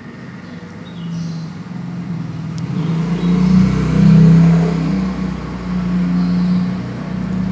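A motor or engine hum. It grows louder, with a deeper rumble coming in about three seconds in, peaks about four seconds in and then eases off somewhat.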